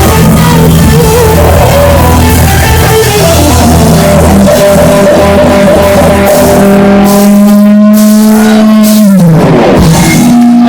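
Live rock song with guitar, in the closing bars: long held notes, and near the end the sound slides down in pitch.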